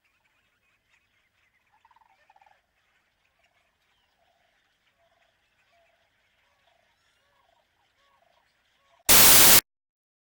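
Faint, repeated short bird-like calls over a faint high hiss, then, about nine seconds in, a very loud half-second burst of noise that starts and stops abruptly, followed by silence.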